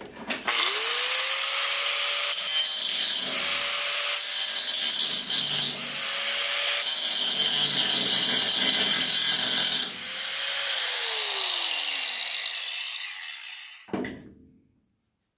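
Angle grinder spinning up and grinding down a raised factory spot weld on a steel frame rail, with two short dips in the grinding. About ten seconds in it is switched off and its whine falls as the disc winds down, followed by a single knock.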